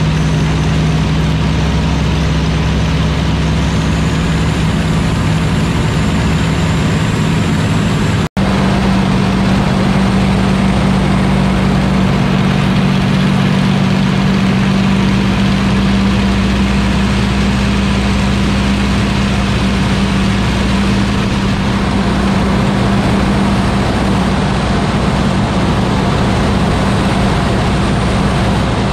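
Steady engine drone and wind noise from inside a light aircraft's cabin, then an abrupt cut about eight seconds in to the steady drone of the two-seat Spitfire T9's Rolls-Royce Merlin V12 heard from its cockpit with heavy wind rush, as the aircraft performs a victory roll.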